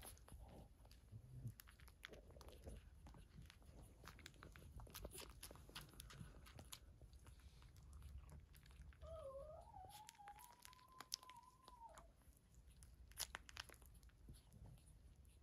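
Faint wet clicking of week-old Cavalier King Charles Spaniel puppies suckling at their mother, with one thin wavering puppy whine about nine seconds in that lasts some three seconds.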